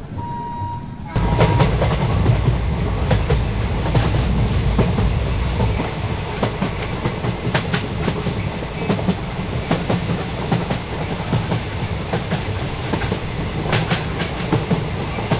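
Jan Shatabdi Express train passing close at speed. A steady horn tone ends about a second in, then the sudden loud rush of the train with rapid, regular clicking of its wheels over the rail joints.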